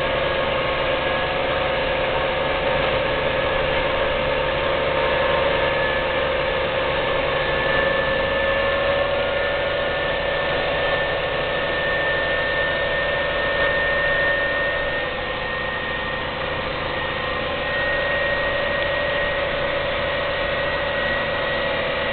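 New Holland T7050 AutoCommand tractor's six-cylinder diesel heard from inside the cab, pulling a full manure semi-trailer along the road. A steady engine drone carries a whine that rises slowly in pitch over the first half, eases off slightly about two-thirds through, then picks up again.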